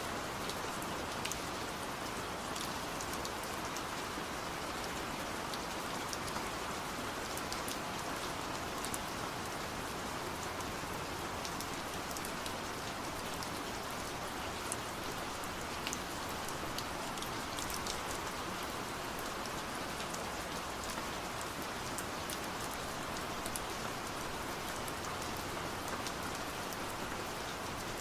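Steady rain falling, an even hiss with scattered sharp ticks of individual drops striking nearby.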